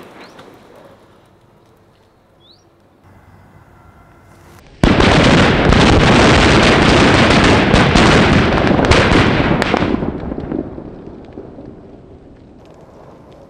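A big bundle of Indian paper firecrackers going off all at once. About five seconds in, dense, rapid crackling bangs start suddenly and run together for about five seconds, then thin out and die away. Faint scattered crackles are heard before it.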